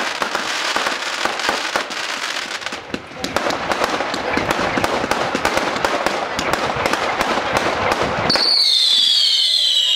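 Lesli 'Turbo Steak' fireworks battery firing: dense crackling and popping from bursting shots, with a short lull about three seconds in. Near the end a loud high whistle wavers and falls in pitch.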